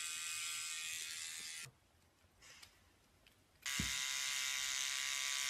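Small electric pet trimmer running at a cat's paw with a steady buzzing whine. It stops about a third of the way in and starts again about two thirds of the way through, with a short low thump just after it restarts.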